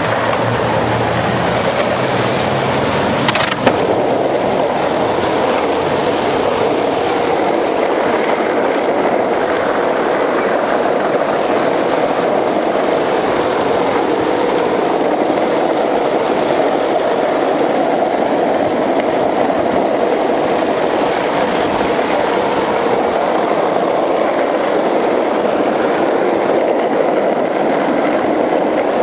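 Skateboard wheels rolling on asphalt: a steady rumbling roar of riding, with one sharp click about three and a half seconds in.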